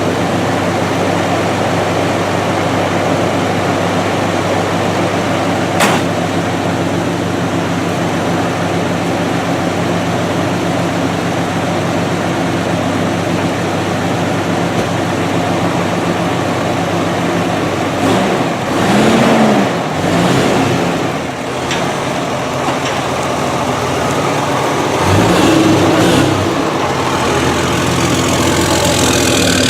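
Dodge Ram 3500's Cummins turbo-diesel inline-six idling steadily, then revving up and down a few times about two-thirds of the way through and again near the end. A single sharp click sounds about six seconds in.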